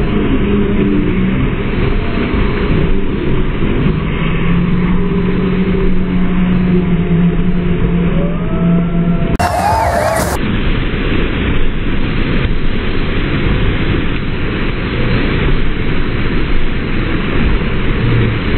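Loud, steady roar of rushing water from an artificial standing surf wave. A low steady hum sits under it for a few seconds in the middle.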